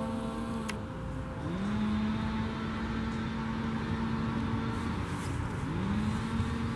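A low machine hum that slides up in pitch, holds steady for about three seconds and cuts off, then starts up again the same way twice.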